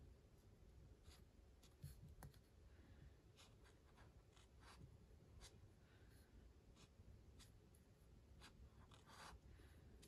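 Faint, irregular scratching of an alcohol marker's nib on sketchbook paper, in short back-and-forth coloring strokes.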